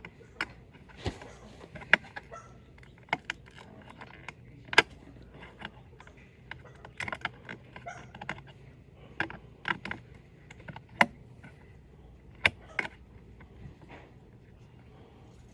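Irregular sharp clicks and clacks of small hard objects being handled, over a dozen spread unevenly, with short pauses between them.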